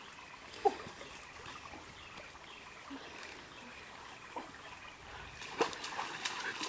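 Shallow stream trickling steadily, with a short sharp sound under a second in. Near the end, water splashes as feet wade into the stream.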